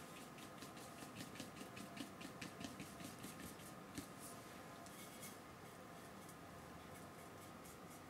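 Faint brush strokes: a paintbrush scrubbing thin acrylic paint onto painting card in quick repeated strokes, about three or four a second, that die down after about five seconds.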